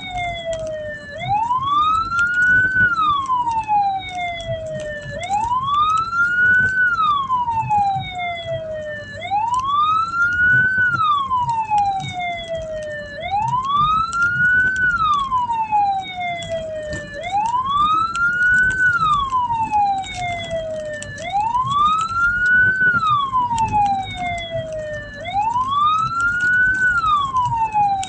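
Hearse's wailing siren, each sweep rising quickly and sliding slowly back down about once every four seconds, over a low vehicle rumble.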